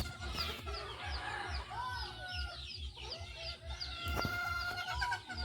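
Free-range native chickens clucking, with many short, high peeps from chicks.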